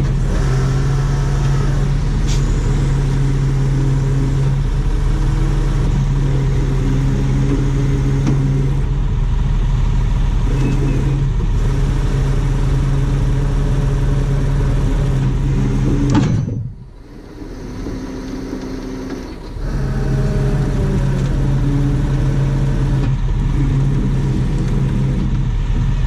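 Heavy rotator tow truck's diesel engine running steadily under load while it works the winch cables. The engine sound falls away sharply about two-thirds of the way through and comes back about three seconds later.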